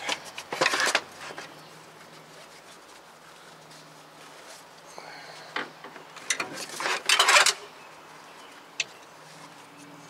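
Cloth towels being pulled out from around the engine, rustling and dragging in two bursts, one about a second in and a longer one around six to seven seconds in, with a single short click near the end.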